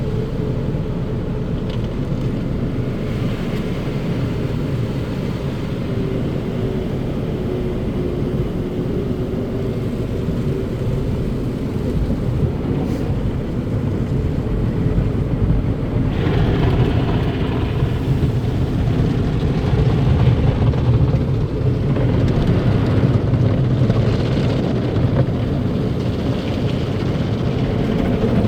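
Automatic tunnel car wash machinery running: a steady low rumble, with swells of hissing about halfway through and again later.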